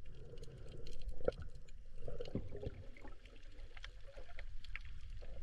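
Underwater reef ambience picked up by a camera in its housing: scattered sharp clicks and crackles over a low rumble, with a few short bubbly gurgles.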